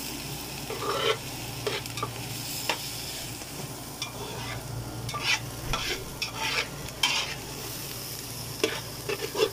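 Metal slotted turner scraping and knocking irregularly against an aluminium pot while diced onions and vegetables sauté in a little oil with a light sizzle, over a steady low hum.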